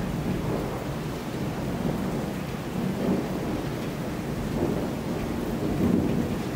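Distant thunder rumbling on and off over the steady hiss of rain, swelling a few times and loudest near the end.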